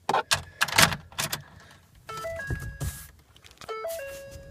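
Keys jangling and clicking at a pickup truck's ignition, followed by a short stepped electronic tone pattern that plays twice, typical of a dashboard chime.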